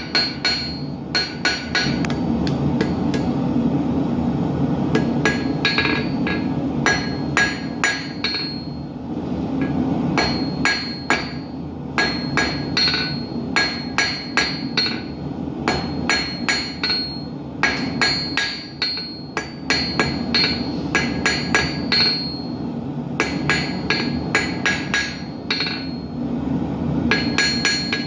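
Hand hammer striking hot steel on an anvil in quick runs of blows with short pauses between them, each blow ringing, as an arrowhead is forged. A steady low rushing, typical of a gas forge burner, runs underneath.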